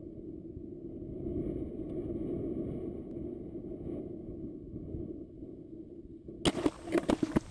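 Steady wind rush on the onboard camera of a descending rocket payload. About six and a half seconds in comes a quick run of sharp knocks as the camera strikes the ground in the field stubble and tumbles.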